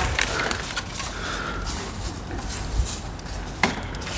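Scattered light knocks and clicks over a low rumble, with one sharper knock about three and a half seconds in.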